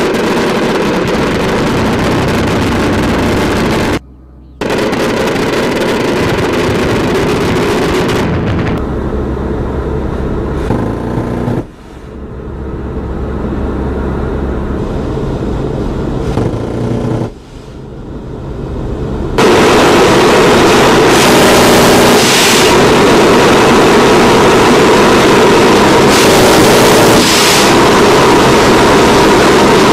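Loud edited sound-effects track of propeller aircraft engines running, mixed with gunfire-like noise. It changes abruptly several times, with a short dip about four seconds in, and the loudest, steadiest stretch is the last third.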